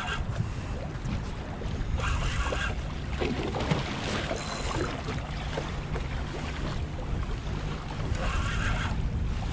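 Water splashing and lapping at a small boat's hull, with wind on the microphone. Short whirring bursts from a spinning reel come three times, near the start, about two seconds in and near the end, as a hooked stingray is fought on the line.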